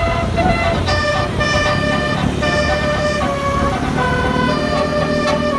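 Bus 'telolet' multi-tone horn playing a tune: several horn tones sounding together, stepping to new notes about every half second, over a low engine rumble.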